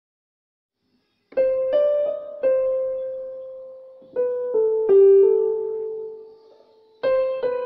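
Background music: a slow piano melody of single notes that ring and fade, starting after about a second of silence.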